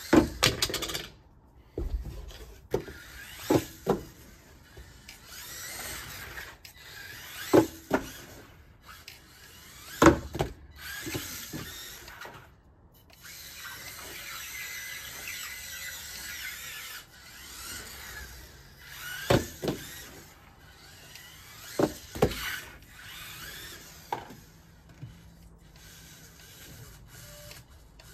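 Losi Micro-B 1/24-scale electric RC buggy driving in bursts on a wooden deck: the small motor and gears whine each time the throttle comes on, with a longer steady whine about halfway through, the wheels spinning with little grip on the dew-wet boards. Sharp knocks and clatters, the loudest sounds, come again and again as the car crashes into things and tumbles.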